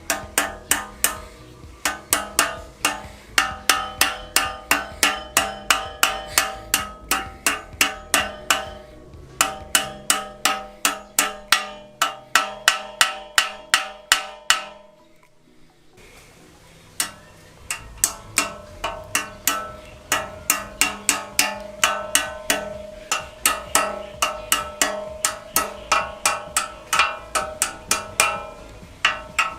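Repeated hammer blows on metal, about two to three a second with a ringing tone after each, typical of driving steering head bearing races into a motorcycle frame. The blows stop for about two seconds midway, then resume.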